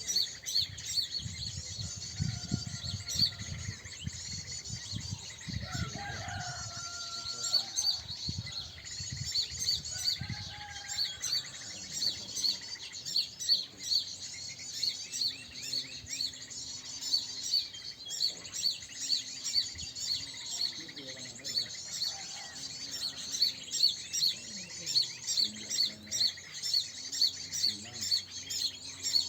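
Small birds chirping and twittering, a dense, fast, high-pitched chatter, with louder chirps coming about once a second through the second half.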